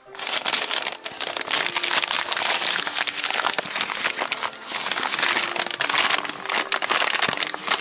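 Padded paper mailer being handled and opened by hand: continuous crinkling and rustling of paper with many small crackles.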